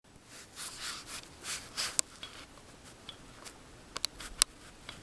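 Rustling of clothing and grass close to a handheld camera's microphone, several swishes over the first two seconds, with sharp handling clicks about two seconds in and a few more around four seconds in.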